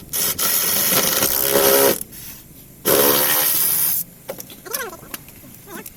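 A power tool run in two bursts, the first about a second and a half long, the second about a second, each stopping abruptly.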